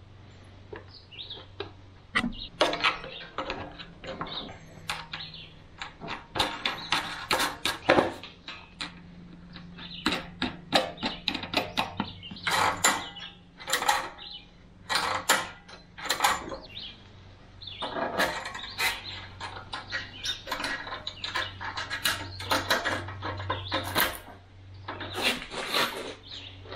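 Clicks, clacks and knocks of hand work on a small engine: the plastic air-filter cover being fitted and pliers working the throttle cable linkage. They come in irregular clusters, some sharp and loud, over a steady low hum.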